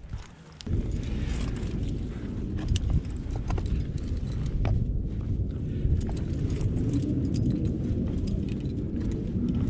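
Low, rumbling wind noise buffeting the microphone, starting about a second in, with scattered clicks and scrapes from a climber's hands and gear on the rock.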